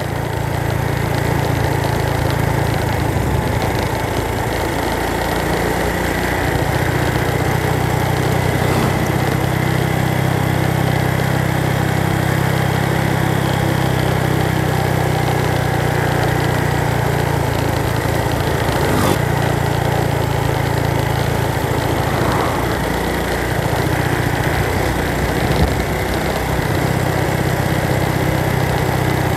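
Engine of a road vehicle running steadily while travelling along a road.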